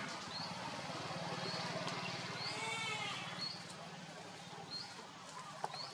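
An animal calling: short high squeaks about once a second, with a longer wavering bleat-like call near the middle, over a steady low hum.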